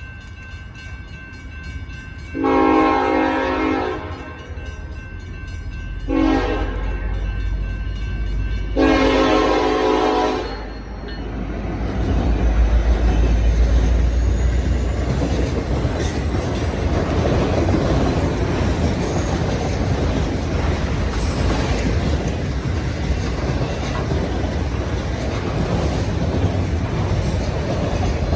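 Train horn sounds a long blast, a short one, then another long one. The locomotive then passes close with a deep engine rumble, and the cars roll by with steady wheel-on-rail noise.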